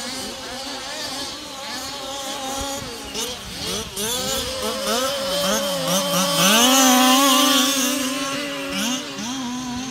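Several 1/5-scale petrol RC cars' small two-stroke engines revving up and falling off as they race, their pitches overlapping. The engines are loudest about two-thirds of the way through.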